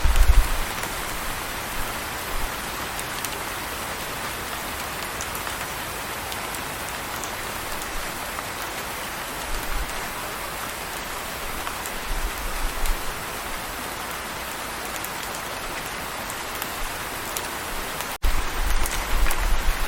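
Steady rain falling, an even hiss of drops. There are bouts of deep low rumbling, and near the end the sound cuts out for an instant before the rain and a stronger rumble come back.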